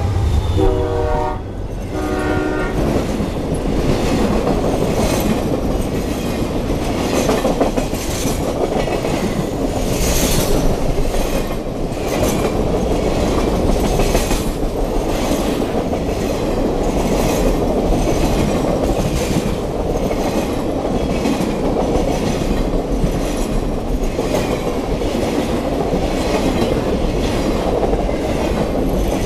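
A freight locomotive's horn sounds its last short blasts as the engine passes close by, stopping about three seconds in. Then Triple Crown road-rail trailers roll past, their wheels clicking over the rail in a regular clickety-clack, about one and a half clicks a second, over a steady rumble.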